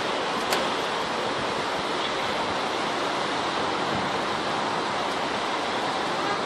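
Steady rushing noise of deep floodwater flowing through flooded streets, with one brief click about half a second in.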